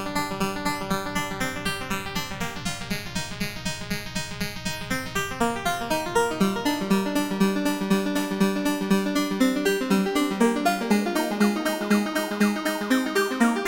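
Moog synthesizer modules in a Doepfer modular case playing a fast repeating sequence of short pitched notes, the pattern and tone shifting as knobs are turned. Brighter, higher notes join in about three-quarters of the way through.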